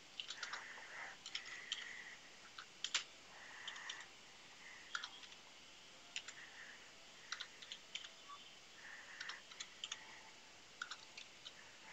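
Computer keyboard being typed on: irregular runs of quick key clicks with short pauses between them.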